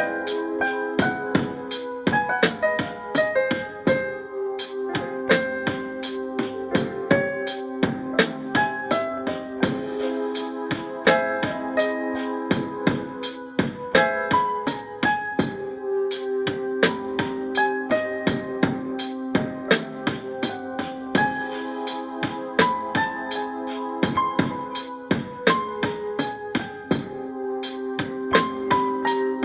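Beat made on an Akai MPC Live from its stock sounds playing back: a keyboard melody over held low notes, with drums and a fast, steady run of percussion ticks.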